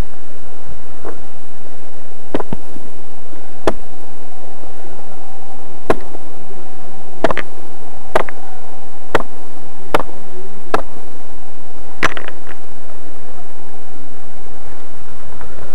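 A series of about ten sharp clicks and knocks, irregularly spaced roughly a second apart and ending about three-quarters of the way through.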